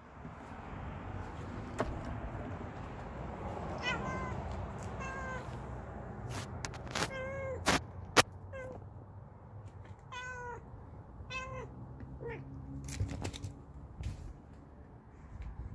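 Domestic cat giving a series of about six short meows, with scattered sharp clicks or taps between them, the loudest about halfway through, and rustling in the first few seconds.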